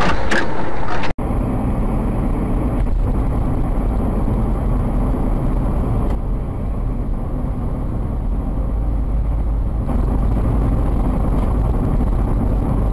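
Steady low rumble of a moving car's engine and road noise, broken by an abrupt cut about a second in.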